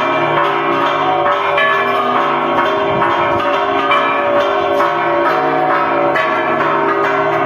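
Church bells ringing in a continuous festive peal. Several bells are struck in quick succession, so their tones overlap without a break.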